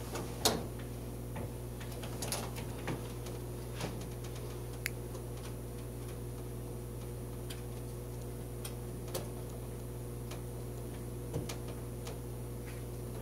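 Scattered sharp clicks and small knocks of plastic cable plugs and an HDMI adapter being handled and pushed into the back of a TV, the loudest about half a second in. A steady low electrical hum runs underneath.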